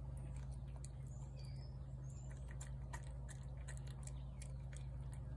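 Feral tabby cat eating wet food from a plate: quick, irregular small clicks and smacks of chewing and licking, over a steady low background hum.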